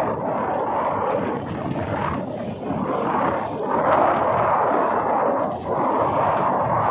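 Steady rushing noise of wind and sea on the microphone aboard a small boat, surging up and down, loudest about four seconds in.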